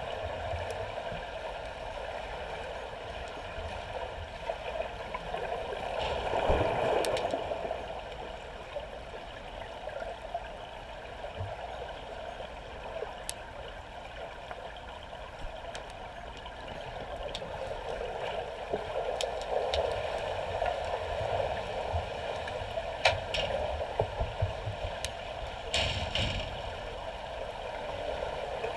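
Swimming pool water heard from underwater: a continuous muffled rush of moving water, swelling louder about six seconds in and again near the end, with scattered sharp clicks.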